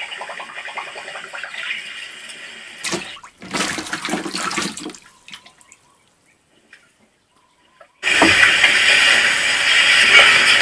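Water splashing and sloshing for about two seconds, starting about three seconds in; after a few seconds of near silence, a loud steady rushing noise starts suddenly near the end.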